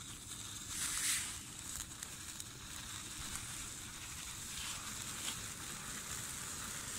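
A bundle of ten Magic Stick sparklers, lit together, burning with a steady fizzing hiss that swells louder about a second in as they catch.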